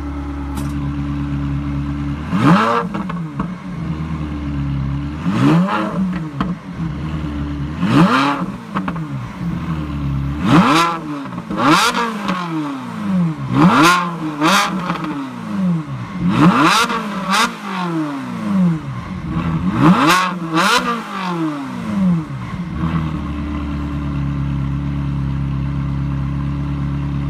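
Ferrari 360 Modena's 3.6-litre V8 revved while stationary, with its variable exhaust valves open. It idles, then from about two seconds in gives a series of about ten sharp throttle blips, each rising and falling back, before settling to idle for the last few seconds.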